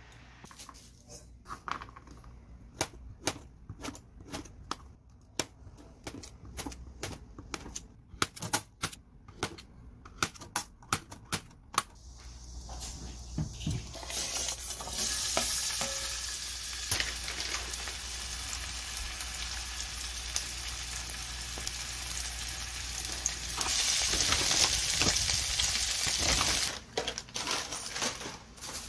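A knife tapping a cutting board in quick, irregular strokes, slicing garlic; then, from about 13 seconds in, sliced garlic sizzling steadily in oil in a stainless-steel pan, louder for a couple of seconds near the end before it cuts off.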